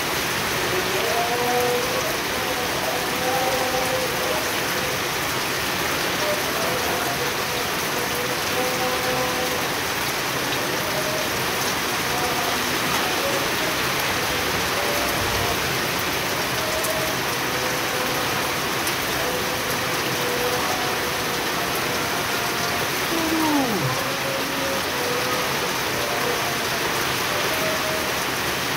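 Steady heavy rain pouring down, drops hissing onto a small pond and the wet stone paving around it.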